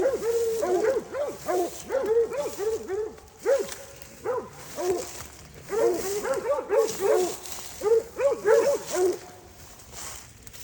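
Hog-hunting hounds and curs barking and yelping in fast, excited bursts, several calls a second, with short pauses, fading out near the end.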